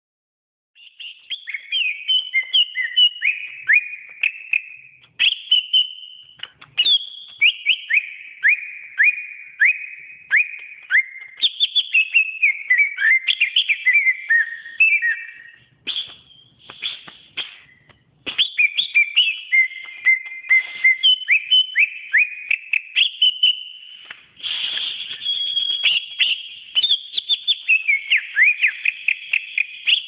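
Green leafbird (cucak ijo) singing a long, varied run of rapid whistled notes, chirps and quick sweeping phrases, starting about a second in, with a short lull about halfway through.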